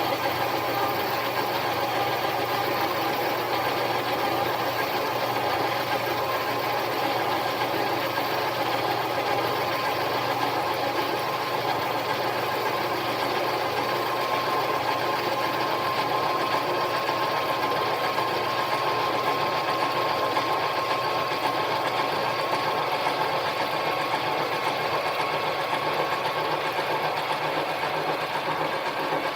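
Harbor Freight mini lathe running steadily under power while turning down a metal spacer, with an even motor and gear whine.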